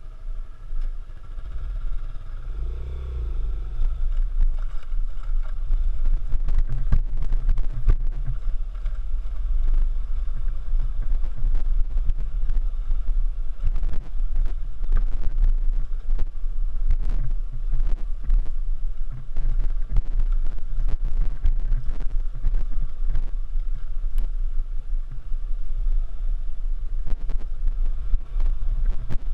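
Small single-cylinder dual-sport motorcycle riding off-road: the engine running under way with a brief rev about three seconds in, under heavy wind rumble on the microphone and frequent irregular knocks from the rough trail.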